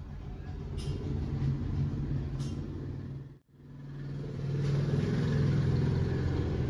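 Steady low engine rumble with a few light clicks over it. It fades out about halfway through and fades back in.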